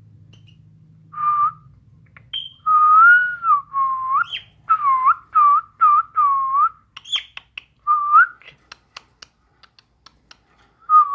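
A whistled tune: a run of short, wavering, pitched notes, some bending up or down, followed by a few faint clicks near the end.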